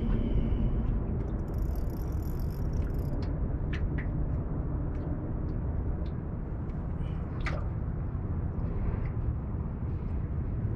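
Steady low rumbling noise, like wind buffeting an outdoor microphone, with a brief high hiss near the start and a few faint ticks.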